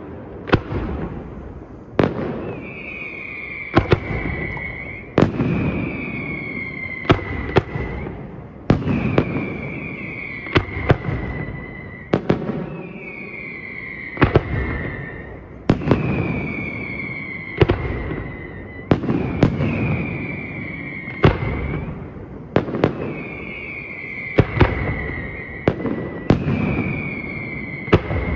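Aerial fireworks display: sharp bangs of firework shells, about one every one and a half to two seconds. After most bangs comes a high whistle falling slightly in pitch for about a second, with rumbling echoes in between.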